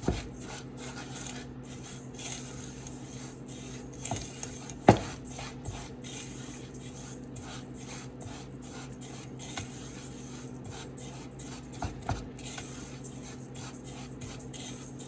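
A utensil stirring lemon zest into granulated sugar in a bowl: continuous gritty scraping and light clicks against the bowl, with one sharper knock about five seconds in. A steady low hum runs underneath.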